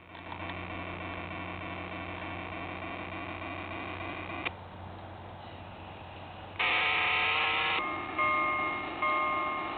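Onboard sound card of a garden-scale Santa Fe NW-2 diesel switcher model playing synthetic locomotive sounds. A steady electronic diesel engine hum drops with a click about halfway through, a one-second horn blast sounds about seven seconds in, and then the bell starts ringing a little under once a second. The owner judges that only the bell sounds right on this inexpensive sound card.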